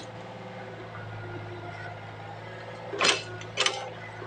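Excavator's diesel engine running steadily with a low hum, with two short louder sounds about three seconds in.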